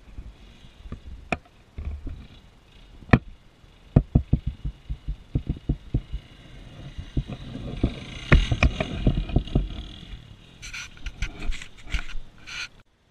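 Wind buffeting the microphone with many sharp knocks, while an Arctic Cat DVX 400 ATV's engine runs at a distance, growing louder toward the middle and then fading. A quick run of clicks and rustles comes near the end.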